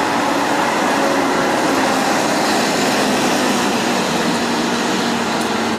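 Red London double-decker bus driving past on a city street, its diesel engine giving a steady hum under a constant wash of road and traffic noise.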